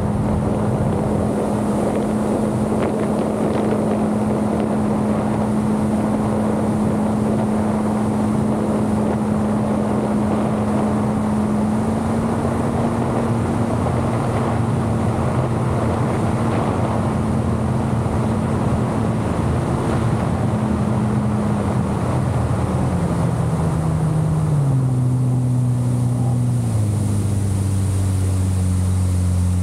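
Yamaha jet ski engine running at a steady cruising speed over a broad rush of wind. About two-thirds of the way through, the engine note falls in several steps as the jet ski slows.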